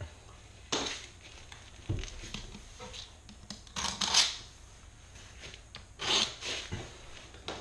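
A utility knife blade scraping along the joint between a stainless linear shower drain and the floor tile, in short strokes about a second in, around four seconds and around six seconds. There are a couple of light knocks between the strokes.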